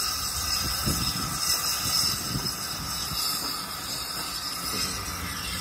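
Steam train passing beneath: a steady hiss of steam over the low rumble of the carriages running below.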